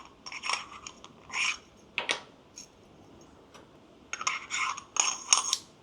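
Stainless steel coffee grounds container and sieve of a manual coffee grinder clinking and tapping as they are handled and taken apart: scattered light metallic clinks in small clusters, busiest about four to five and a half seconds in.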